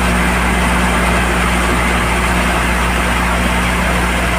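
Tractor-driven Bansal mini thresher running steadily while threshing sorghum (jowar). The tractor engine's hum blends with the noisy rush of the threshing drum, loud and unbroken.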